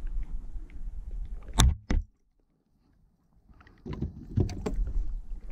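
Fishing gear handled on a plastic paddleboard deck: two sharp knocks close together, then after a short silent gap a quick cluster of knocks and clatter, over a low rumble.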